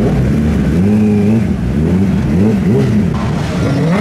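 Kawasaki Ninja ZX-10R's inline-four engine revved while standing still: a longer rise and hold in the first second and a half, then a run of quick throttle blips that rise and fall in pitch.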